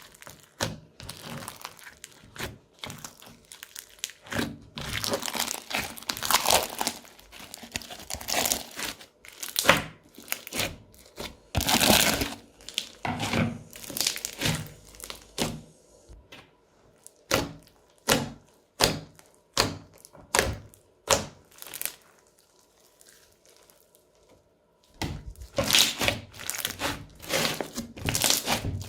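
Crunchy slime being squeezed and pressed by hand, giving dense, irregular crackling and popping clicks. It goes quiet for a few seconds near the end, then the crackling starts again.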